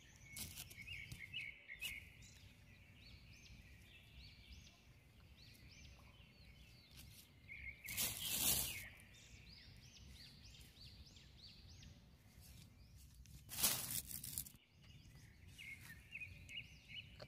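Outdoor forest ambience with birds chirping over and over, broken by two louder bursts of rustling noise, about eight and fourteen seconds in.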